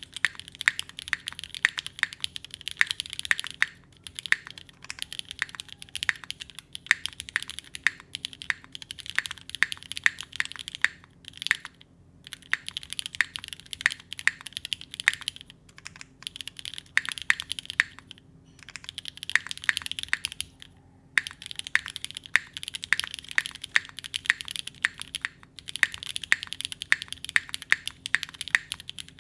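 Typing on a Singa Kohaku mechanical keyboard with lubed and filmed Vintage Black linear switches, Staebies stabilizers and GMK Honeywell ABS keycaps. Fast runs of keystrokes broken every few seconds by short pauses.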